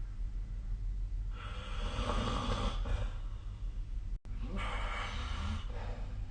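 A sleeping person snoring: two rough, noisy breaths, the first starting about a second in and lasting nearly two seconds, the second just after a split-second dropout near the middle. A steady low hum runs underneath.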